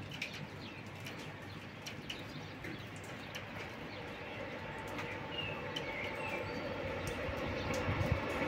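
Birds chirping over a steady rumble that slowly grows louder as a high-speed train approaches along the line.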